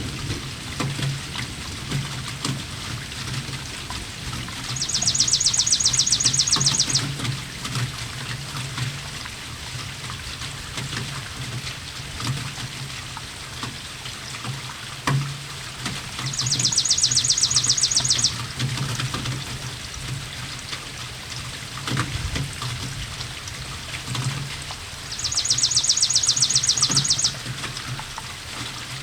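Rain with water trickling and pouring, a steady wash over a low rumble. Three times, about ten seconds apart, a songbird gives a high, fast trill of about two seconds, louder than the rain.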